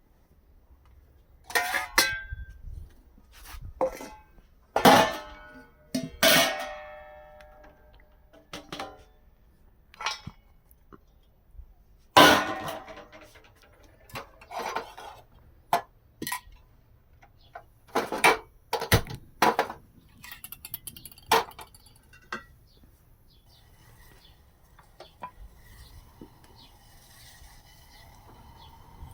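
Irregular series of sharp metallic clinks and clatters, some ringing briefly, thinning out after about 22 seconds into a faint steady background with thin high tones.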